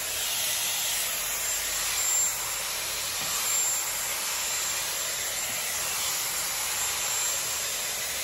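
Dyson hair styler blowing air with a steady, even rushing hiss while drying a strand of hair.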